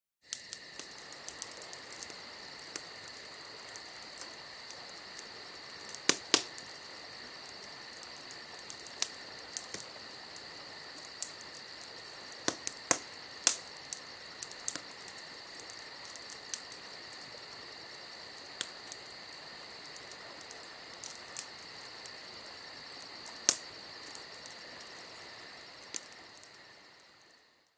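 Campfire crackling with scattered sharp pops over a steady chorus of crickets, fading out near the end.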